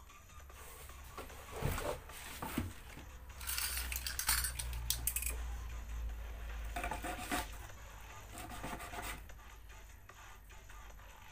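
Small metal fittings and a plastic toothbrush-handle lure body being handled and worked by hand: scattered clicks and clinks with scratchy rubbing, busiest a few seconds in.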